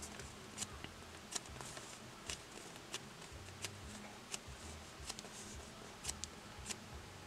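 Hands squeezing a soft foam squishy bun toy: faint, irregular clicks and soft rustles of fingers on its surface, with a faint sound of air pushed out as it is squished.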